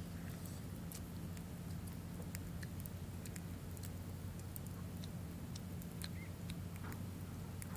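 Sparse small clicks and crackles of a roasted stone crab's shell being picked apart and eaten by hand, over a steady low hum.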